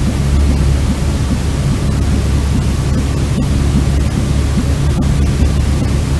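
Steady white noise for soothing a baby, a continuous even rush weighted heavily towards the deep bass.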